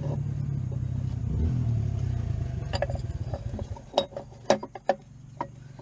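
A steady engine hum that dies away a little under four seconds in, with several sharp metallic clinks of parts or tools in the second half.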